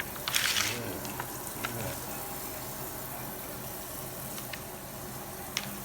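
Food sizzling in a hot pan: a steady frying hiss, with a louder burst of sizzle about half a second in and a few sharp clicks of utensils.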